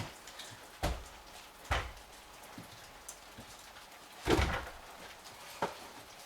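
Four irregular knocks, the loudest a little past the middle, over a steady patter of rain.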